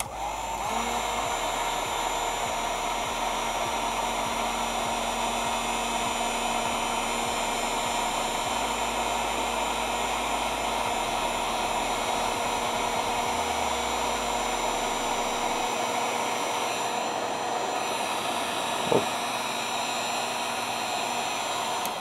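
Heat gun running steadily, an even rush of blown air with a steady motor whine. A short blip sounds near the end.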